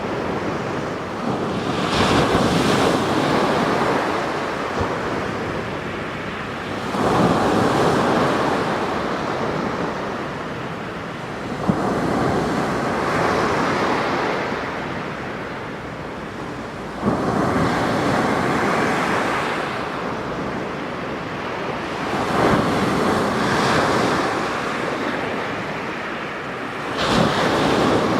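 Sea waves breaking on the shore, a fresh wave crashing in about every five seconds, each surge rising suddenly and then washing back more slowly.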